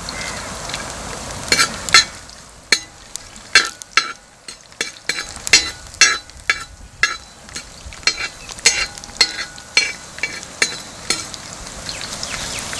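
Chopped garlic, ginger and curry leaves frying in hot coconut oil in a wide metal uruli, sizzling, loudest in the first couple of seconds. A perforated steel skimmer stirs them, scraping and clicking against the pan over and over.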